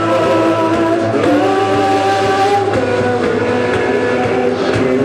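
Live band playing electric guitar and bass in sustained, droning chords that shift to new chords about a second in and again near the middle.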